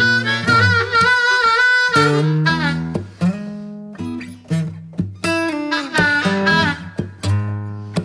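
Background music: a harmonica playing held, bending notes over plucked acoustic guitar, in a bluesy style.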